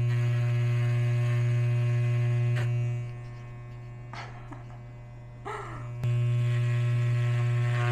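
Electric hair clipper buzzing steadily as it cuts through a pigtail of long hair. The buzz falls away about three seconds in, then comes back loud with a sharp click about six seconds in.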